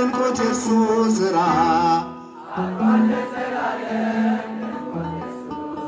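Ethiopian Orthodox mezmur: a man sings a wavering, melismatic vocal line into a microphone, which breaks off about two seconds in. The accompaniment then carries on in steady held notes.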